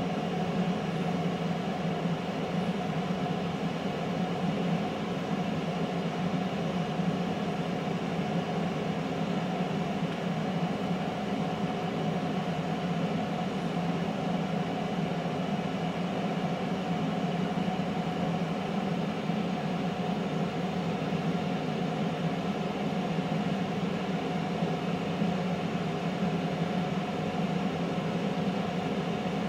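Power XL air fryer running at 370 °F mid-cook, its fan giving a steady whir with a strong low hum.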